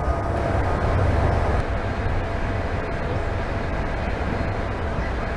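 Steady low rumble and running noise of a moving Israel Railways passenger train, heard from inside the carriage.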